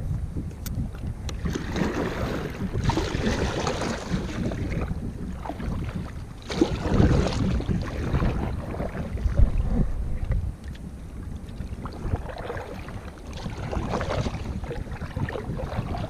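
Sea kayak being paddled: a double-bladed paddle dipping and splashing in the water, the water noise swelling with each stroke every few seconds, with wind rushing on the microphone.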